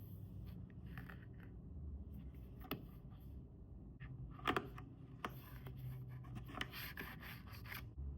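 Hands handling and opening a phone-case box: light rubbing and tapping on the packaging, a sharp click about four and a half seconds in, then a run of scraping and rustling that stops shortly before the end.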